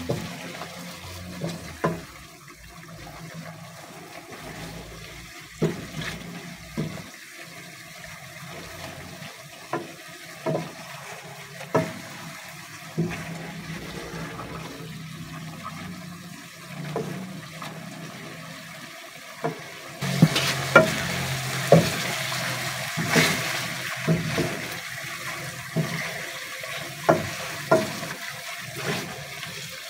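A spatula stirring catfish pieces in simmering broth in a nonstick pot, with scattered sharp knocks of the spatula against the pot and a steady hiss of bubbling liquid. The hiss gets louder and brighter about two-thirds of the way through.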